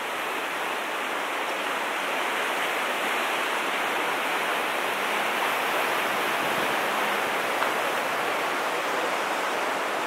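Fast-flowing river water rushing steadily over shallow riffles.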